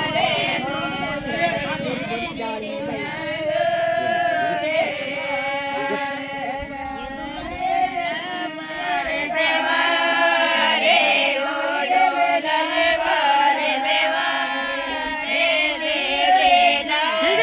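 Several voices singing a mayra folk song together in a chanting style, the melody wavering and sliding in pitch.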